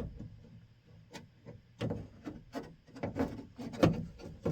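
Irregular clicks, knocks and rubbing of hand work on a pickup truck's door latch parts, with the loudest knock near the end.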